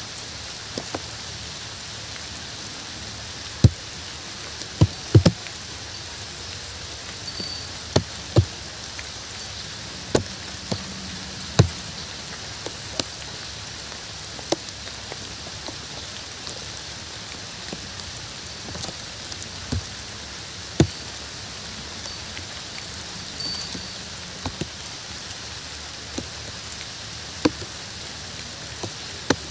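Steady rain falling, with heavy single drops hitting a surface close by as sharp taps at irregular intervals, every second or two.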